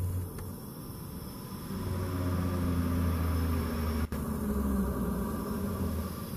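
A vehicle's engine running with a steady low hum that grows louder about two seconds in, and a single sharp click about four seconds in.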